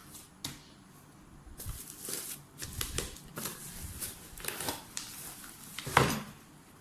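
Cardboard box and packaging being opened and handled: scraping, rustling and small clicks, with one sharp knock about six seconds in.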